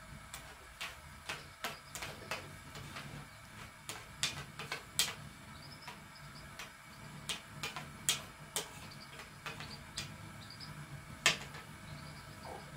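Metal spoon clinking and scraping against a china plate in irregular clicks, with two louder clinks about five and eleven seconds in.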